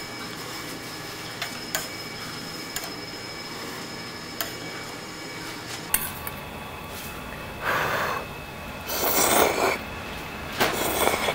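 Metal chopsticks tapping a few times against a steel pot and small steel bowl as tteokbokki is spooned out, then three breathy bursts in the second half as the hot food is blown on and slurped.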